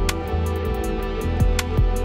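Electronic dance background music with a steady beat and ticking high percussion.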